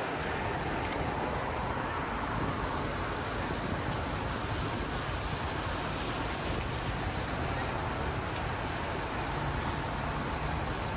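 Steady city street ambience: a constant wash of traffic noise with a low rumble underneath.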